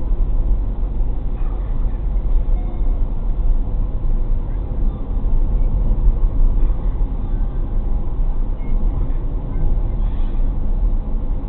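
Car cabin noise while driving at about 55 km/h: a steady low rumble of tyres on the road and engine, heard from inside the car.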